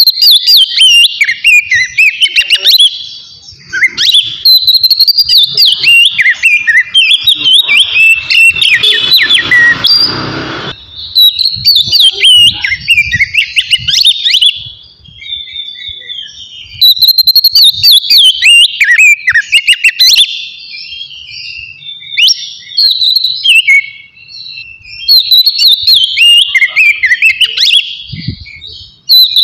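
Oriental magpie-robin (kacer) singing loudly in its clear 'ngeplong' style: rapid, varied whistled phrases delivered in bursts separated by short pauses. A brief rushing noise comes partway through.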